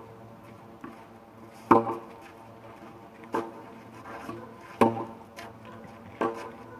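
Tennis racket striking a ball four times, about one and a half seconds apart, each hit followed by a brief ringing tone.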